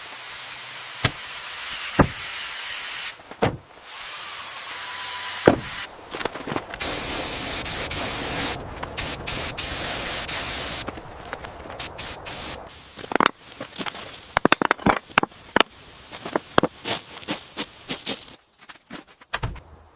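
Building-work sounds in short cut-together clips: stretches of hissing, the loudest a few seconds after the middle, broken up by sharp knocks and clicks that come thick and fast in the second half.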